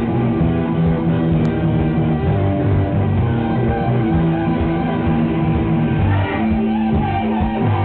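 Electro-punk band playing live: electric guitar, synth keyboard, bass and drums going steadily at full volume.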